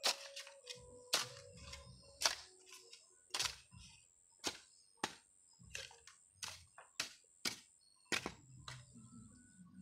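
Long-handled metal shovel chopping into and scraping through dry, stony soil: sharp strikes about once a second, quickening to about two a second midway, with soil crumbling and sliding between strokes.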